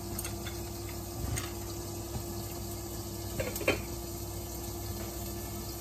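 Water with minced pork and carrots bubbling in a wok under a glass lid, a steady simmering hiss over a faint steady hum. Two short knocks about three and a half seconds in.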